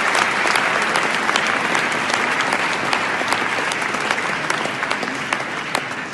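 Audience applauding, a dense patter of clapping that slowly dies away towards the end.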